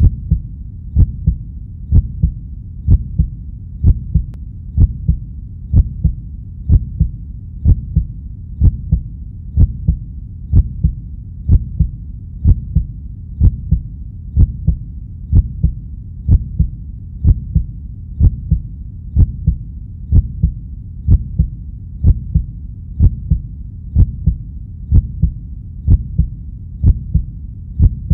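Soundtrack pulse: a deep thump about once a second, each with a sharp attack, over a steady low drone, like a heartbeat beat laid under a film intro.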